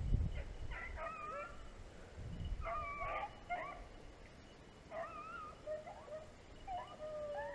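Beagles baying on a rabbit's trail, several dogs' wavering voices overlapping in scattered bursts, fairly faint. The baying is the pack running the rabbit by scent.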